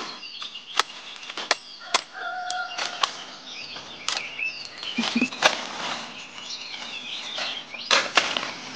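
A hand sickle chopping through the crisp stalks of leafy greens, with irregular sharp crunching snaps and leaf rustle. The loudest snaps come about five and a half and eight seconds in. Small birds twitter in the background throughout.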